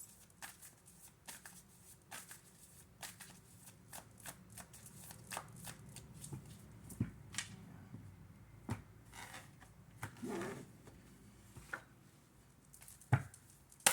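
Tarot cards being shuffled by hand: a continuous run of soft, irregular card flicks and riffles, with a couple of sharper card taps near the end.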